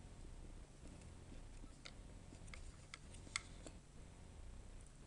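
Faint, scattered light clicks from small parts being worked on a laptop's logic board, as its ribbon and cable connectors are unplugged: about half a dozen sharp ticks, mostly in the second half.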